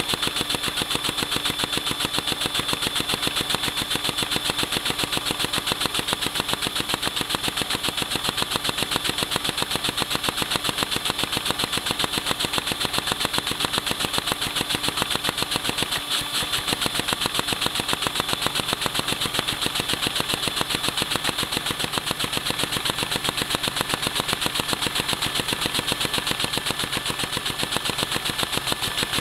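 LEGO vacuum engine with a 6x6 round cylinder in a flathead layout, running on suction from a vacuum cleaner hose: steady rhythmic clicking of the plastic mechanism over the vacuum's constant whine. It runs very slowly because the holes in the sides of the 4x4 macaroni bricks leak air from the cylinder.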